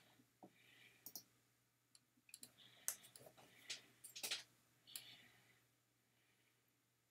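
Soft, scattered clicks at a computer, about eight in the first five seconds, with faint rustling between them, as answers are entered on an online quiz.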